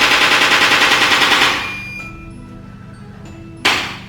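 Handheld chiropractic adjusting instrument firing rapid, evenly spaced taps, about ten a second. The burst stops about one and a half seconds in and starts again near the end, with soft background music in the gap.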